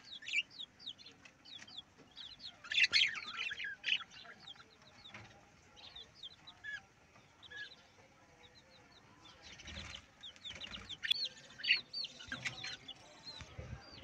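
A flock of budgerigars chirping and chattering: a steady stream of short, quick, high chirps, rising and falling in pitch, with louder bursts of chatter about three seconds in and again over the last few seconds.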